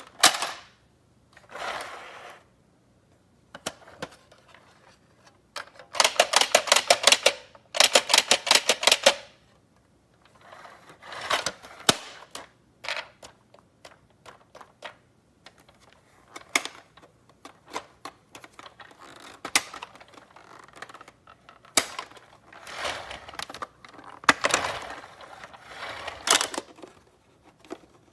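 Handling noise of small hard objects: scattered clicks and knocks, with two runs of rapid, ratchet-like clicking about six and eight seconds in.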